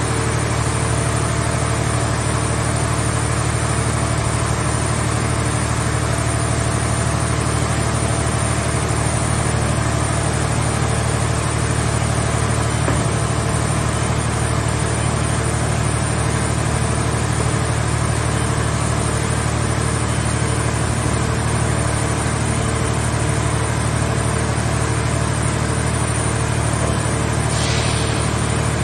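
Hydraulic car baler's engine-driven power unit running at a steady speed, a constant low drone that does not change, with a brief faint hiss near the end.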